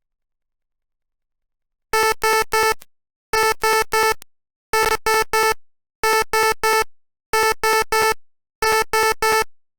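Simulated electronic fire-alarm beeper from a micro:bit program in Tinkercad: a buzzy beep of one steady pitch sounded in groups of three, six groups about 1.3 s apart, starting about two seconds in.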